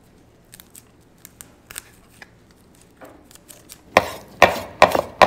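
Chef's knife chopping fresh basil and thyme on a wooden cutting board: about five quick, sharp strikes starting about four seconds in, after a few faint light ticks.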